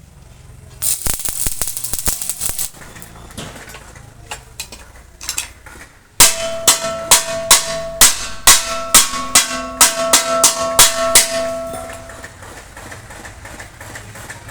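A hammer striking metal about three times a second for some five seconds, each blow ringing on. Before that, a short rasping scrape and a few scattered clicks.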